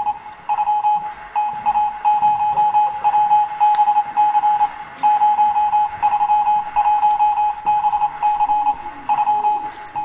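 Telegraph sound effect: a single steady beep tone keyed on and off in an irregular run of short and long stretches, like Morse code.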